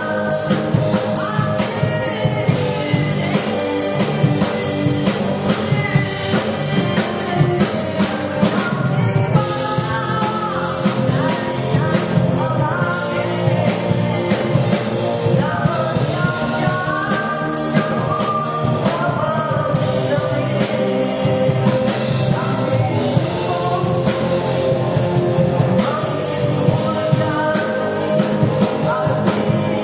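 Live band playing a rock-style song with a vocalist singing over it, loud and steady.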